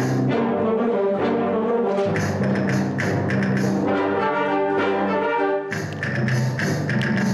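Concert wind band playing live: sustained brass-led chords, with clusters of sharp percussion strikes over them.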